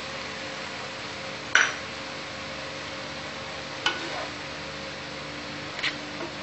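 Spatula stirring yogurt into onion masala in a nonstick frying pan, knocking against the pan three times, sharpest about a second and a half in, over a steady low hiss.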